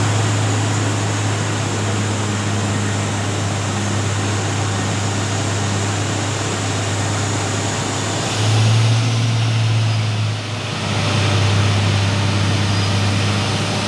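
Milling machine running steadily with a constant hum and a rushing noise. About eight seconds in the sound changes, growing deeper and louder. It drops briefly just after ten seconds, then settles again.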